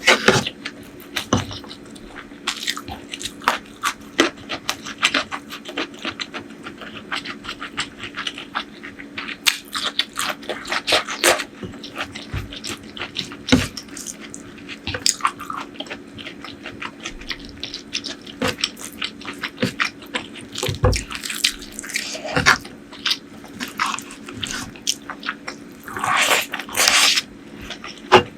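Close-miked mouth sounds of a person eating a meal of prawn curry, fried eggplant and rice: steady chewing with many wet smacks and clicks at an irregular pace, over a faint steady hum. Near the end there is a longer noisy stretch.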